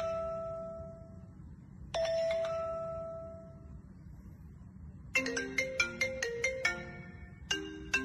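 Smartphone ringtones previewed through the phone's speaker while the ringtone list is scrolled. First come two single chime tones, each ringing and fading, about two seconds apart. Then, about five seconds in, a quick ringtone melody of short bright notes starts, and it gives way to another tune a little before the end.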